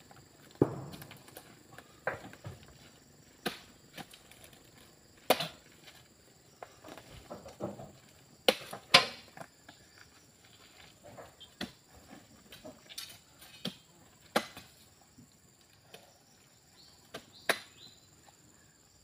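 Oil palm fruit bunches being speared with a pole and heaved into a dump truck: irregular sharp knocks and thuds, one every second or two. A steady high insect drone runs underneath.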